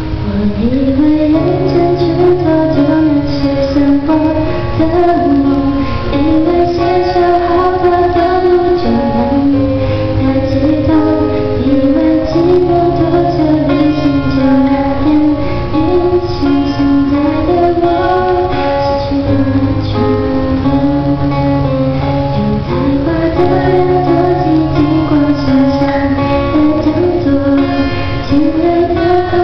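A woman singing a slow song into a microphone, accompanied by a fingerpicked acoustic guitar.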